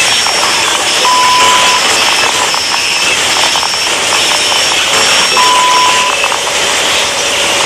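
Digital glitch sound effect: a loud, steady static hiss broken by short, repeating high beeps, with a held mid-pitched tone sounding twice, about a second in and again about five and a half seconds in.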